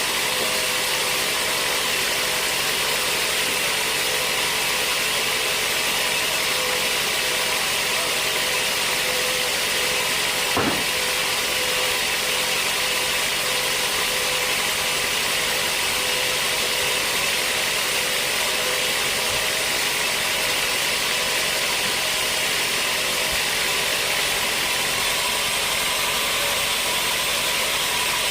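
Sawmill machinery running steadily while logs are sawn, with one brief knock about ten seconds in.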